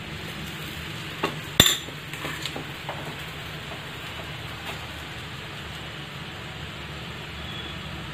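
A steel spoon clinks and scrapes against an iron tawa while spreading stuffing over a rava tikka base. Two sharp clinks come about a second and a half in, then lighter taps, all over a steady low hiss.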